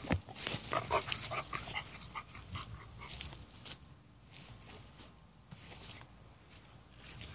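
A sharp knock, then a puppy giving a quick run of short, high whines and yips for a couple of seconds, with light rustling and footfalls on grass after.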